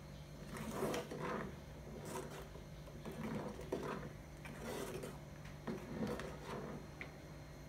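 Metal ladle scraping and knocking against the inside of an aluminium pot while stirring and scooping vegetables out of hot water, an irregular string of scrapes and clinks.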